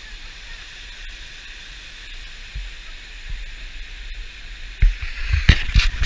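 Waterfall rushing over rocks, a steady hiss. From about five seconds in, loud irregular rumbling bumps on the microphone take over.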